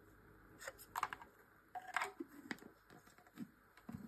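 Several scattered plastic clicks and light knocks as a plastic paintbrush-cleaning gadget is handled and its parts are fitted together and set down.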